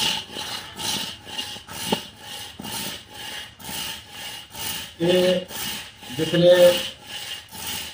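Hand saw cutting through a hard, dry log of sheesham (tali) wood, in steady back-and-forth strokes about two and a half a second.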